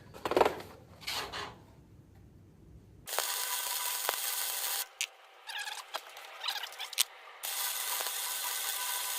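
Arc welding: two short bursts of the welder's steady sizzling hiss, each starting and stopping suddenly, the first about three seconds in and the second near the end, laying short welds on steel. A few clinks and knocks come before and between the bursts.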